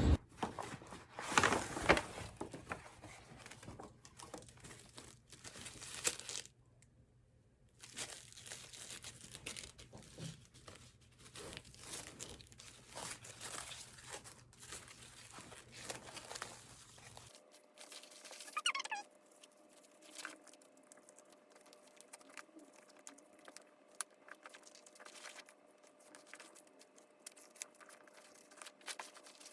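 Crinkling and rustling handling noise with scattered small clicks and knocks, briefly dropping to near silence about seven seconds in.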